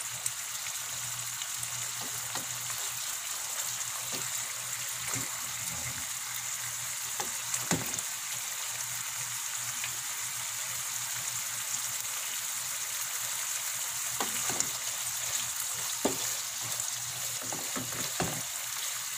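Tuna chunks in coconut milk simmering in a nonstick frying pan: a steady sizzling hiss with a few sharp pops here and there. Near the end a wooden spatula stirs through the sauce.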